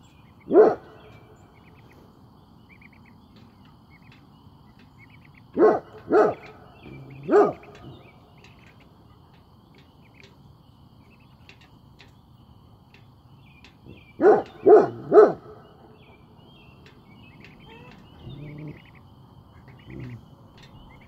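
Great Pyrenees giving deep alert barks while on watch: one bark near the start, a burst of three a few seconds later, another quick burst of three in the middle, then a few softer barks near the end. Faint bird chirps are heard in the background.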